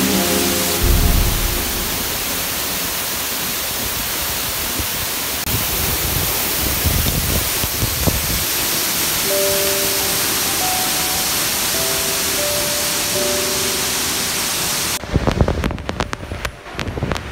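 A steady, loud rush of falling water, with soft background music coming in over it about halfway through. Near the end the rush gives way to low rumbling and crackling.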